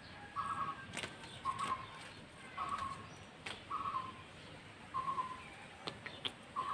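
A bird calling a short, even note over and over, about once a second, with a few sharp clicks between the calls.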